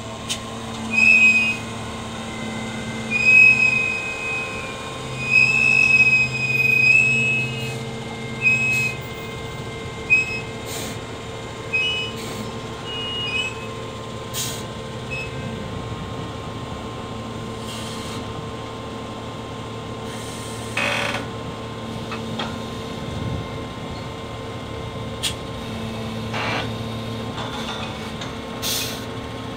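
SDLG wheel loader's diesel engine running steadily as it handles a bulk fertilizer bag on its crane jib, with a string of high-pitched squeals through the first half and a few sharp clicks and knocks.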